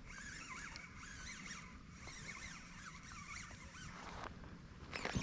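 Spinning reel being cranked to retrieve line while fighting a hooked bass, a raspy whirr with wavering squeaks. A brief louder knock near the end.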